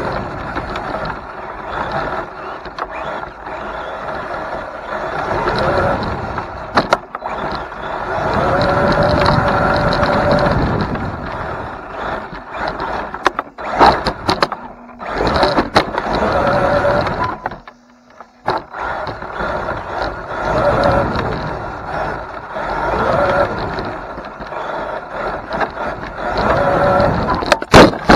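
Traxxas TRX-4 Sport RC truck running on a Spektrum motor and ESC from a 3S battery, its motor and gears whining up and down in pitch with the throttle and cutting out briefly about two-thirds of the way through. There are a few sharp knocks as the truck tumbles, the last and loudest near the end.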